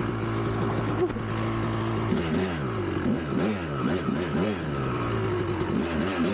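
1999 Kawasaki KX250 single-cylinder two-stroke engine idling steadily. About two seconds in, the rider starts revving it up and down repeatedly in quick throttle blips.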